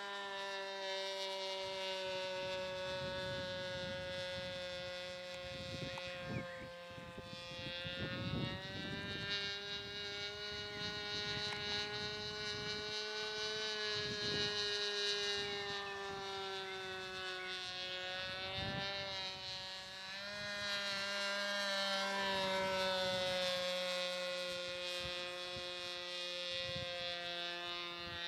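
Model airplane's SC .25 two-stroke glow engine in flight: a steady buzzing drone whose pitch drifts slowly up and down as the plane moves around the sky.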